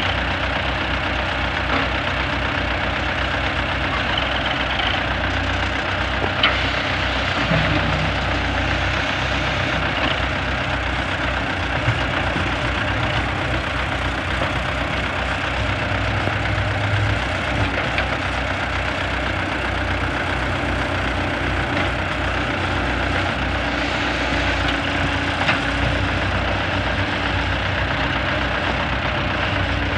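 Diesel engines of YuMZ EO-2621 tractor backhoes running steadily under digging work, with a few short sharp knocks.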